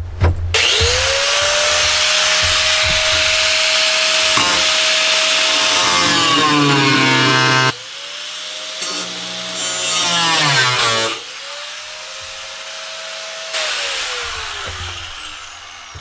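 Power tool with a cutoff wheel spinning up with a high whine and cutting into the van's sheet-steel bulkhead with a harsh grinding hiss. The whine sags under load and cuts off about eight seconds in. The tool runs again, and near the end it winds down with a falling whine.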